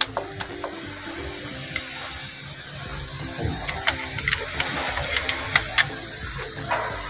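Scattered sharp metallic clicks and knocks of hand tools working a dowel-pinned part loose on a Komatsu diesel engine, over a steady machine hum and hiss.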